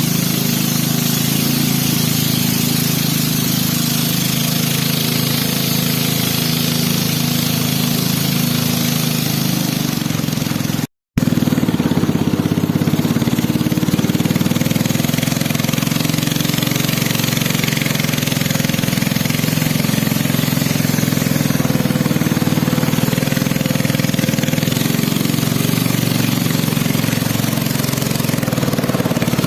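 A small engine running steadily at constant speed with a rattly drone. It cuts out completely for a moment about eleven seconds in, then carries on unchanged.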